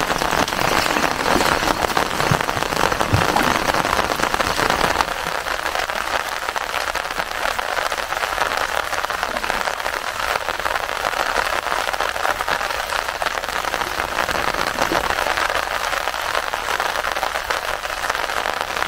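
Steady rain pattering on an umbrella and on the lake water, a dense crackling hiss with no let-up.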